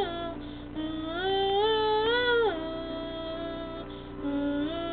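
A child singing a slow ballad unaccompanied, in long held notes that glide up and then drop away, with short breaths between phrases.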